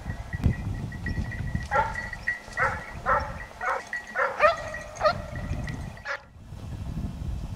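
Hunting dog barking as it chases game, a run of short barks about two a second over a low rumble; the barking breaks off about six seconds in.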